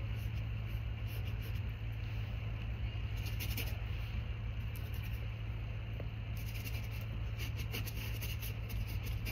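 Paintbrush scraping on canvas in a few short strokes, most of them in the second half, over a steady low hum.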